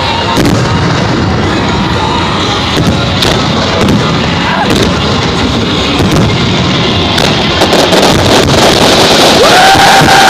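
Fireworks display going off overhead in a rapid string of bangs and crackles, over crowd noise. Near the end a loud steady horn starts sounding and holds.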